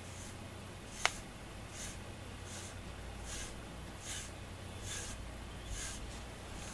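FURminator deshedding tool raked through a cat's fur in short strokes, a soft scratchy rasp about once every 0.8 s. There is one sharp click about a second in.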